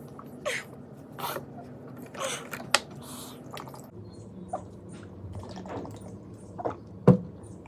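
Mouth and breathing noises from a person whose mouth is burning from a super-hot chili chip: a string of short hissing breaths and sniffs with sharp lip or tongue clicks, two of them loud, about three seconds in and near the end.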